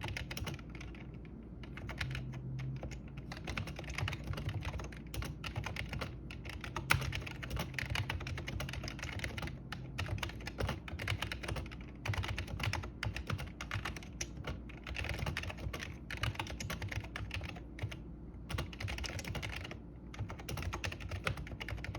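Typing on a Dell quiet-key computer keyboard: a continuous run of fast, soft key clicks with short pauses, and one sharper key strike about seven seconds in.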